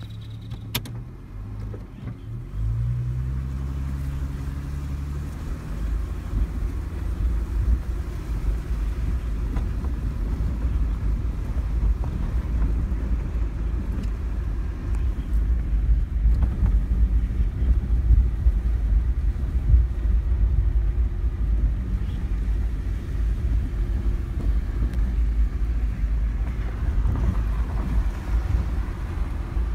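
Vehicle driving on a rough dirt off-road trail, heard from inside. The engine note rises as it pulls away, then gives way to a steady low rumble of tyres and suspension with frequent small jolts over bumps.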